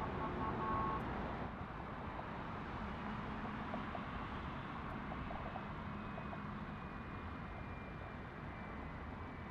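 Jet airliner engines at idle as a Boeing 757 taxis: a steady, low-heavy noise, with a faint high whine coming in and falling slightly in the second half. A brief stepped tone at the start stops about a second in.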